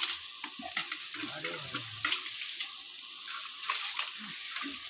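Chicken masala for biryani sizzling in an aluminium pot over a wood fire: a steady hiss with scattered small pops and crackles.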